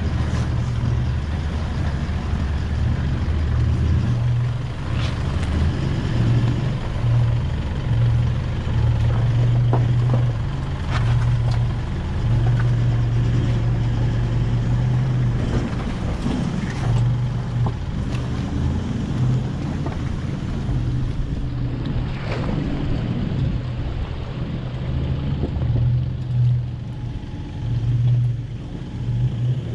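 A Toyota LandCruiser 76 and an Isuzu MU-X, both diesel four-wheel drives, crawl through a shallow rocky creek crossing, their engines running at low revs with uneven swells. Water splashes around the tyres, with an occasional knock.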